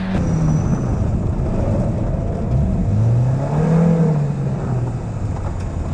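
Subaru WRX STI rally car's turbocharged flat-four engine under way, its pitch climbing about three seconds in and falling away again toward the end.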